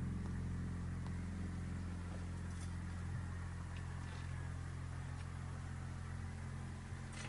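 A steady low hum with a few faint clicks over it.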